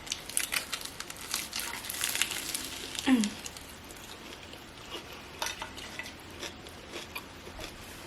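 Close-up chewing of a BLT sandwich on toasted bread: crunchy crackles and wet mouth clicks, densest in the first three seconds. At about three seconds in there is a short voiced sound that falls in pitch.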